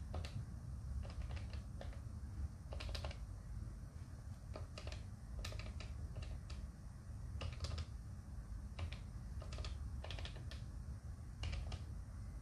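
Keypad buttons of a Polycom VVX 411 desk phone being pressed: faint plastic clicks in small quick runs of two to four, as letters are entered by pressing the number keys repeatedly.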